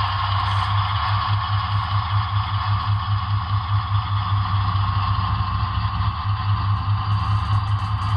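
HO scale Broadway Limited ES44AC's Paragon 4 sound decoder playing the GE diesel prime mover as the model locomotive runs, through its onboard speaker. A steady engine sound with a low, evenly pulsing rumble underneath.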